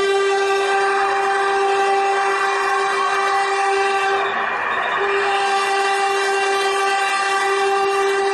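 Locomotive horn sounding a long steady blast, breaking off briefly about four seconds in, then sounding a second long blast.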